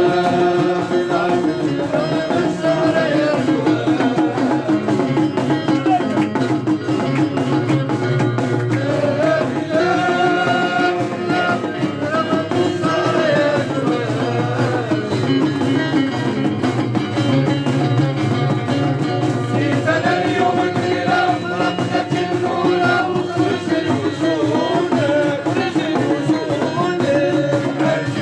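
Folk music with fast hand-drum percussion under a wavering melody line, playing loudly and without a break.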